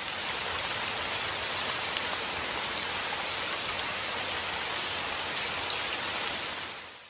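Steady rain falling: an even hiss with scattered drop ticks, cutting off abruptly near the end.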